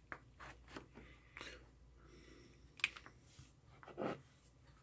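Faint, scattered clicks and rustles of an oscilloscope probe and its cables being handled and set down on a wooden bench, with one sharper click just past the middle.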